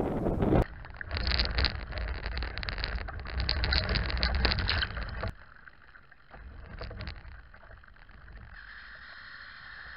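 Choppy water splashing and rushing against the hull of an RC model boat, heard from a camera on its deck, after a brief burst of wind buffeting the microphone at the start. The splashing stops abruptly about five seconds in, leaving a faint hiss, with a thin steady whine coming in near the end.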